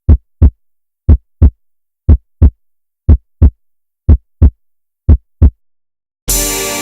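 Heartbeat sound effect: paired low thumps, about one pair a second, six pairs in all, with dead silence between. Music with keyboard and guitar starts near the end.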